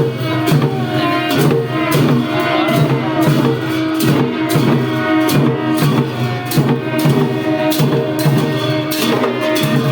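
Traditional Newar music for the Bhairab dance: drums and other percussion struck about twice a second, over held pitched notes.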